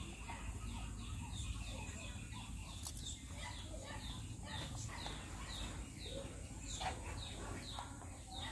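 Birds chirping: a run of short, high chirps that each fall in pitch, about two a second, starting about three seconds in, over a steady low rumble.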